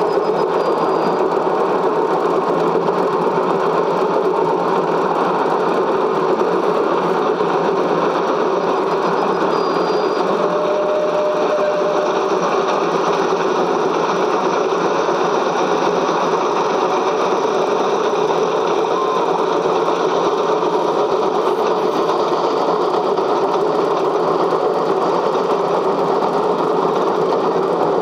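Cine film projector running, a steady mechanical whirring clatter from the film transport.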